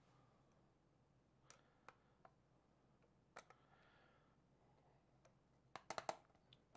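Faint clicks and light knocks from hands turning the axes and working the clutches of a Meade LX85 German equatorial mount, scattered singly and then in a quick run of clicks near the end.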